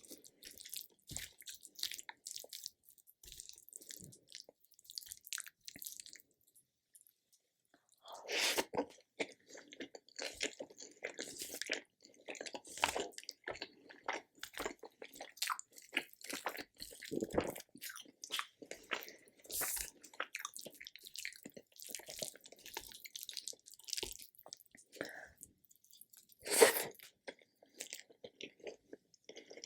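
Close-miked mouth sounds of eating: chewing and biting with many small wet clicks and crackles, soft for the first several seconds and then louder and busier, with one loud crunchy bite near the end.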